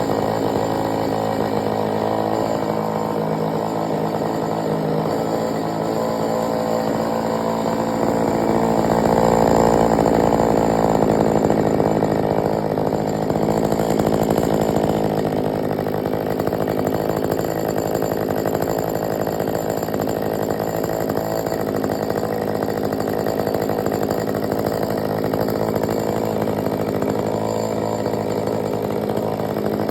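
John Deere 66SV two-cylinder chainsaw running steadily, getting louder for a few seconds around ten seconds in.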